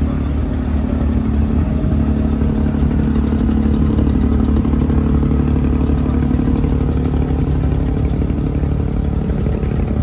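Inboard engine of a motorised wooden abra ferry running steadily under way, an even low drone with no change in pace.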